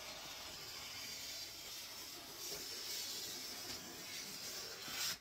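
Scissors gliding through wrapping paper in one long continuous slice, a steady hiss that stops abruptly about five seconds in as the cut finishes.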